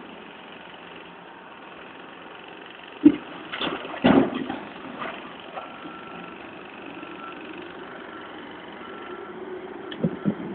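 Caterpillar 442E backhoe loader's diesel engine running as its front bucket dumps soil into a dump truck, with loud thuds of dirt and stones landing in the truck body about three and four seconds in. From about halfway, the loader's reversing alarm beeps about once a second as it backs away.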